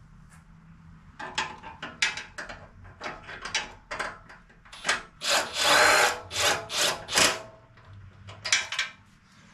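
Cordless Ridgid right-angle drill run in short bursts to snug up bumper bolts, with clicks and rattles of the socket and bolts in between; the longest run, about a second, comes about five and a half seconds in.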